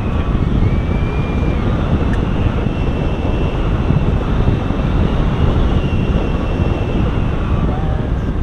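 Steady rush of wind buffeting the camera microphone on a hang glider in free flight, with a faint high whistle that comes and goes.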